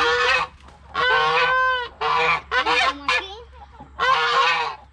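Farmyard waterfowl giving about five loud, harsh calls in a row, each under a second long, with short gaps between them.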